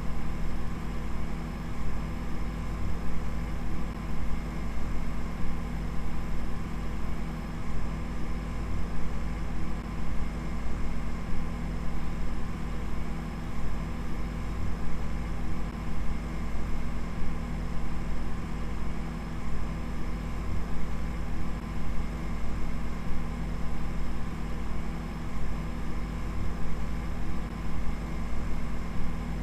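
A steady low hum or drone made of several fixed tones, its loudness flickering slightly but unchanging overall.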